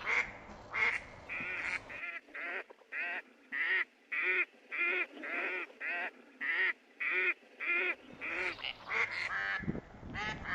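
Ducks quacking: a steady run of short repeated quacks, about two a second, with less regular quacks near the start and the end.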